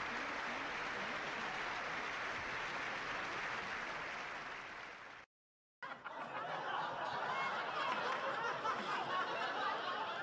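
Large audience applauding, fading away about five seconds in, then a half-second of dead silence; after it, audience laughter.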